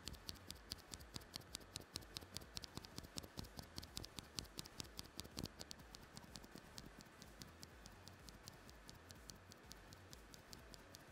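A bare Cherry MX Black linear keyboard switch pressed and released rapidly between the fingers: a quick run of quiet plastic clacks, about four or five a second, with the scratchy stem friction that stock switches are known for. About halfway through, a lubricated stock switch takes over and the clacks become fainter.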